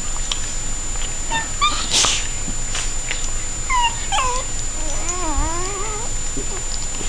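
Dogs wrestling, giving short high yips and whimpers that drop in pitch, then a longer wavering whine about five seconds in. A short hiss-like burst about two seconds in is the loudest sound.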